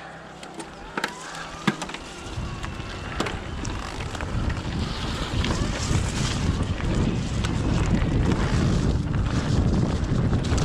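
Wind rushing over the microphone, with tyre and frame rattle, as an electric mountain bike rides down a trail. A few sharp clicks come first, and the rushing noise builds up from about two seconds in and stays loud.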